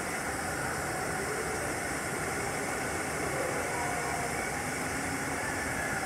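Steady rushing background noise of an indoor rainforest exhibit, with a few faint short tones about halfway through.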